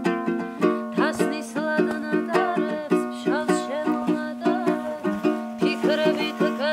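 A woman singing a song to an even strummed accompaniment on a small guitar-like acoustic string instrument, about three strums a second. The voice comes in about a second in.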